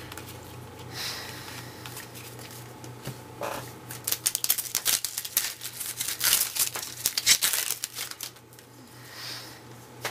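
Crinkling and rustling of a plastic foil trading-card pack wrapper and the cards in hand. It comes as a string of quick irregular crackles, busiest from about four to eight seconds in.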